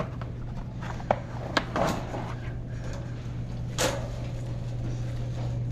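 Wire shopping cart being pushed along a store aisle: a steady low rumble with a few sharp rattles and clanks from the cart, one about a second in, two more around a second and a half to two seconds, and one near four seconds.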